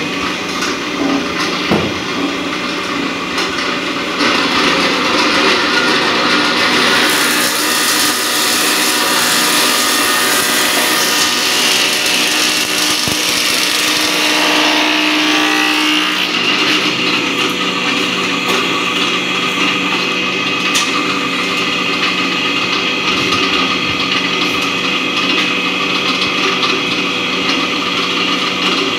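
Electric wood planing machine running, its cutter head planing a long timber that is fed through. The cut is loudest and brightest from about a quarter of the way in to about halfway, and the machine runs steadily with less load for the rest.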